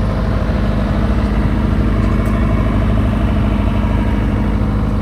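JCB G116QS skid-mounted four-cylinder diesel generator running at a steady, even speed.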